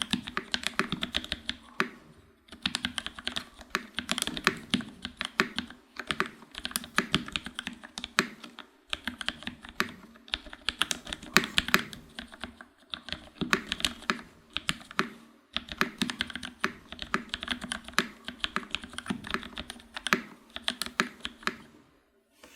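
ALF X1.1 custom mechanical keyboard with a carbon fiber plate, lubed TTC Gold Pink linear switches, lubed stabilizers and GMK keycaps, typed on in fast runs of keystrokes broken by brief pauses every few seconds.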